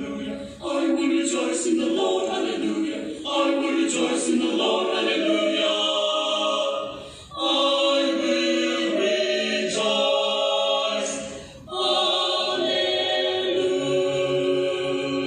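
Mixed choir of men's and women's voices singing a sacred song in sustained phrases, with brief breaths between phrases about half a second in, around seven seconds in and near eleven and a half seconds.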